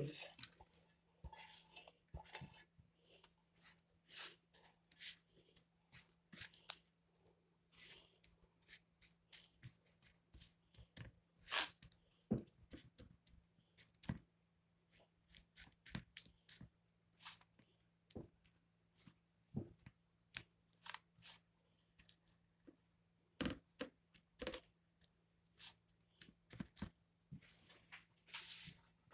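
Spoon scraping sticky cooked coconut-and-sugar mixture out of a pot and onto a metal baking tray: many short, irregular scrapes and taps, with a faint low hum underneath.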